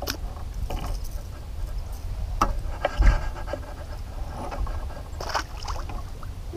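A bass splashing at the surface beside a small boat as it is brought in, followed by scattered clicks and knocks of handling in the boat, with a low thump about three seconds in.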